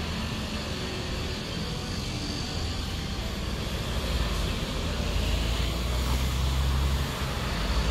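Street traffic: cars passing on the road with a steady hiss of tyres and engines. A vehicle's low engine rumble grows louder from about halfway through and eases off near the end.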